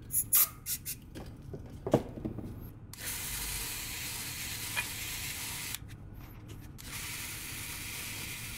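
Aerosol cleaner sprayed from a can in short bursts, then a steady hiss that breaks off briefly about six seconds in.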